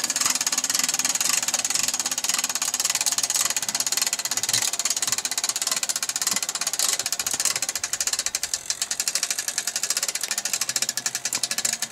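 ATV (four-wheeler) engine running at idle with a fast, even pulse.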